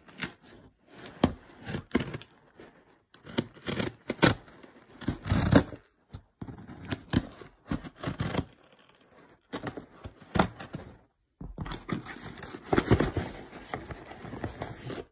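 Packing tape on a cardboard parcel being slit and torn open, with scraping, tearing and rustling of the cardboard in fits and starts and short pauses between.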